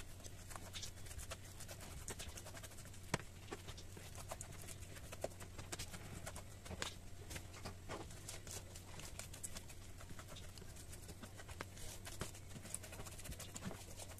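Fingers picking raw reineta flesh off the bones on a plastic cutting board: irregular soft clicks and taps, with one sharper knock about three seconds in. A low steady hum runs underneath.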